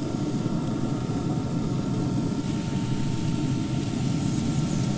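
Steady low mechanical drone with a faint, even hum above it.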